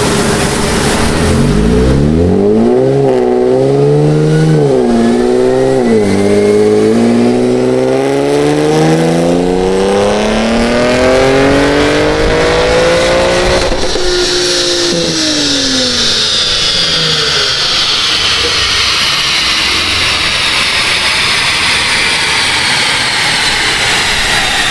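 Infiniti VR30 3.0-litre twin-turbo V6, fitted with Z1 VRX70B turbos, a 2.5-inch cat-back exhaust and catted downpipes, running on a chassis dyno. It revs and shifts up through the gears with a few short drops in pitch, then makes one long full-throttle pull rising steadily in pitch. About 14 s in it lifts off suddenly; the engine note falls away and a high whine slowly drops in pitch as it spins down.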